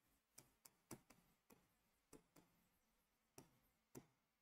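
A series of faint ticks and taps from a pen writing on a board, the strongest about a second in and near the end.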